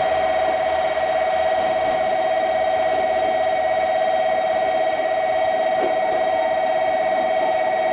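An electronic warning alarm sounding continuously at one steady pitch, with a fast flutter.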